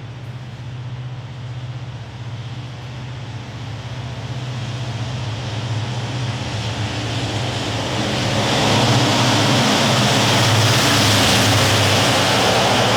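Hitachi diesel-electric locomotive hauling an express train, approaching with a steady low engine hum and growing rumble of wheels on rail. It grows steadily louder and is at its loudest from about eight seconds in as it passes close by.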